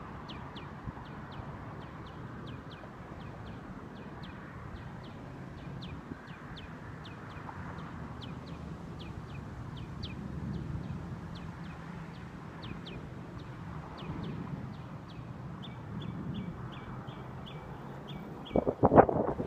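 An animal's short high chirp, repeated about three times a second without a break, over a low outdoor rumble. A cluster of loud knocks close to the microphone comes near the end.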